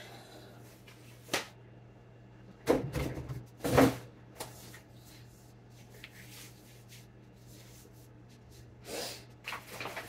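Kitchen cupboard or appliance doors being opened and shut as groceries are put away: a sharp click, then two louder thumps about a second apart, followed by faint knocks and a short rustle near the end.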